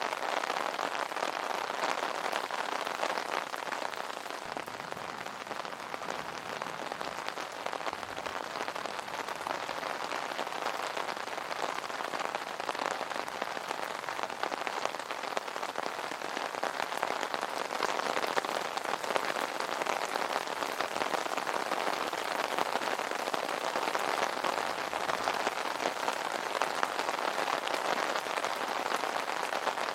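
Rain falling on an umbrella canopy: a dense, steady patter of drops with no letup.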